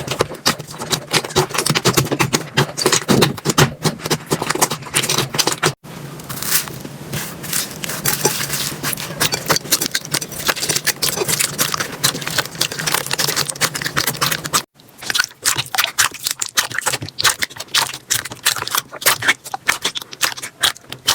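Slime being squeezed and worked by hand, a dense run of small sticky pops, clicks and crackles. The sound breaks off sharply about six seconds in and again about fifteen seconds in, as one slime gives way to the next.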